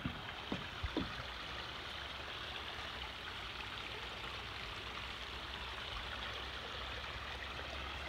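Creek water rushing and splashing over rocks in a steady, even rush, with two light knocks in the first second from footsteps on the wooden footbridge.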